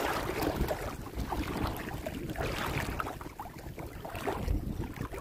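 Water sloshing and splashing around legs wading through shallow water, under a heavy rumble of wind gusting on the microphone.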